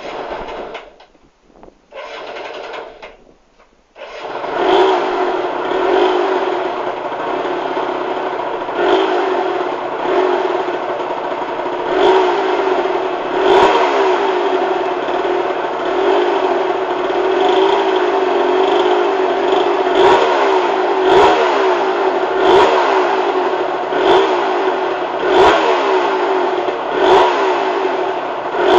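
Suzuki RG125F's single-cylinder two-stroke engine starting for the first time after a rebuild: it fires briefly twice, catches about four seconds in, then runs with repeated blips of the throttle.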